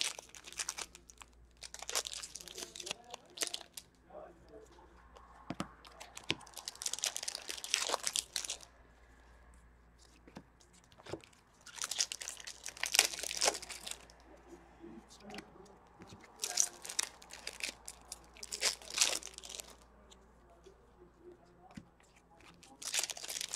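Trading-card pack wrappers of 2014-15 Upper Deck Series 1 hockey being torn open and crinkled, in irregular bursts every few seconds. Cards are handled between the bursts.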